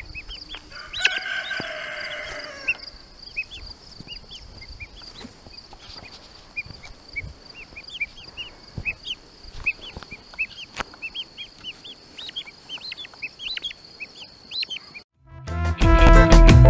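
Two young guinea fowl calling: one longer call about a second in, then a long run of short, high chirps. The sound cuts off near the end, and music starts.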